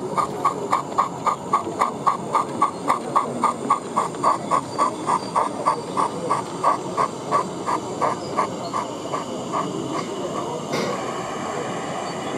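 O gauge model steam tank locomotive running with a quick, even chuffing beat of about four chuffs a second, which fades out around ten seconds in. A single sharp click comes near the end, over steady background noise.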